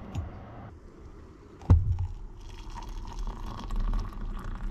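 A sharp knock a little under two seconds in, then water poured from a kettle into a ceramic mug, a steady pouring that rises in pitch as the mug fills.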